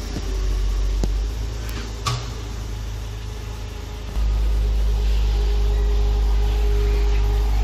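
Porsche Boxster's flat-six engine idling steadily with a low, slightly pulsing note, growing abruptly louder about four seconds in. A single sharp click comes about two seconds in.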